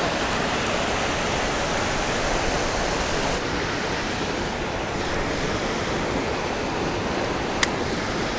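Steady rush of water spilling over a dam spillway, its hiss dulling a little a few seconds in, with one sharp click near the end.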